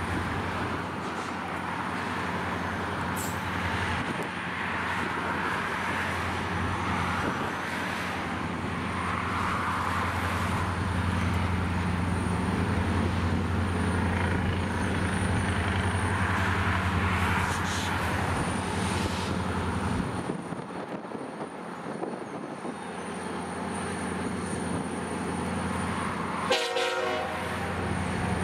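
EMD SD40-2 diesel locomotive's 16-cylinder engine running at low throttle with a steady low drone as it switches cars at walking pace. A short locomotive horn toot sounds near the end.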